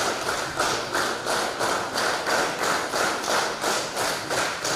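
Congregation clapping together in a steady rhythm, about three claps a second.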